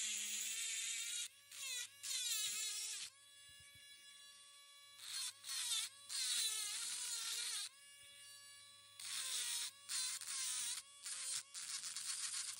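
Dremel rotary tool grinding into fossil shell rock. Its high motor whine sags in pitch each time the bit bites, with gritty grinding in about five bursts. Between the bursts the motor spins free at a steady pitch.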